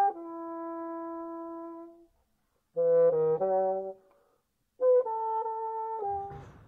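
Bassoon playing: a held note that fades out about two seconds in, then after a pause a quick run of short notes, then another held note that stops near the end, followed by a short noise.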